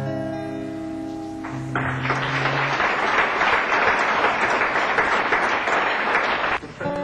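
The last notes of an acoustic guitar ring out and fade. The audience then applauds for about five seconds, and the applause stops as guitar picking starts again at the very end.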